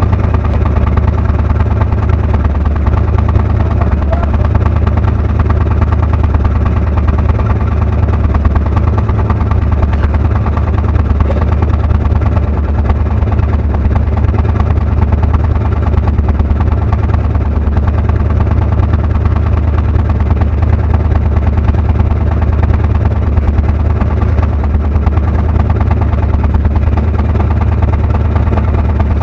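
A boat engine running steadily at constant speed, a loud low drone with no change in pitch.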